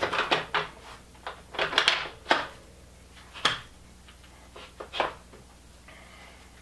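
E-bike battery pack being slid onto its mounting plate on the bicycle's down tube to check the fit: a quick run of clicks, scrapes and knocks, then a few single knocks spaced a second or so apart.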